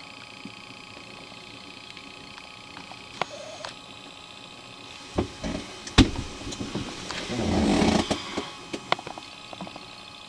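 Handling and movement noise close to the microphone: small clicks, a sharp click about six seconds in, and a scraping rustle lasting about a second near eight seconds.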